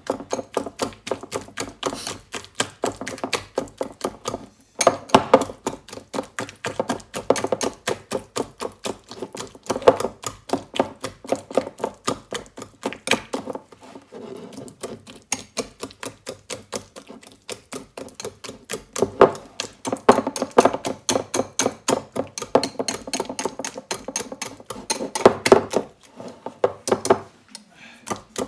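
A utensil beating rapidly against a bowl, several quick clattering strikes a second, as the three bananas for the banana cake are mashed. The strikes break off briefly twice, about five seconds in and again near the end.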